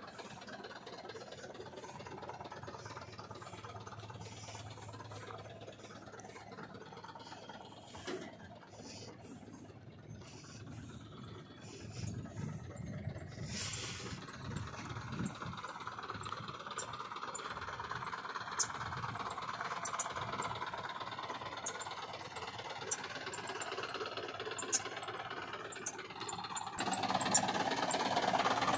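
Eicher 11.10 cargo truck's diesel engine running, with a rattle and scattered sharp clicks. It gets louder about two-thirds of the way through and again near the end.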